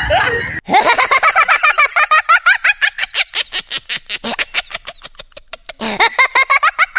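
High-pitched cackling laughter, a rapid run of about seven 'ha' pulses a second that slowly fades, then a fresh burst of laughing starts near the end: a comedy laugh sound effect.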